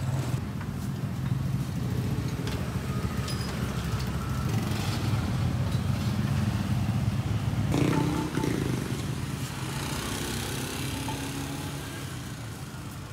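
A small engine running steadily with a low hum, fading over the last few seconds.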